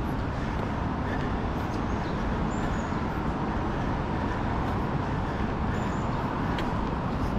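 Steady city road-traffic noise, a continuous even rumble with no single event standing out.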